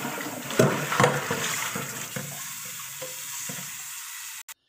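Kitchen tap running into a stainless steel pot, filling it with water to boil, with a couple of knocks from the pot about half a second and a second in. The sound cuts off suddenly near the end.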